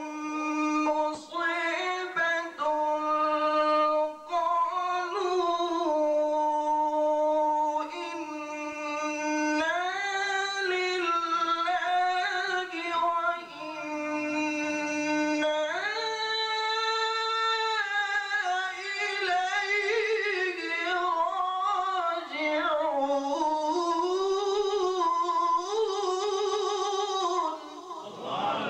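A man reciting the Quran in a slow, melodic tajweed style, holding long notes and winding through ornamented turns between them.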